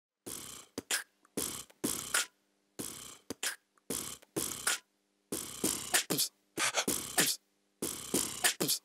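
Solo beatboxing: a run of vocal drum sounds (kicks, snares and hi-hat hisses) in short bursts separated by brief silent gaps.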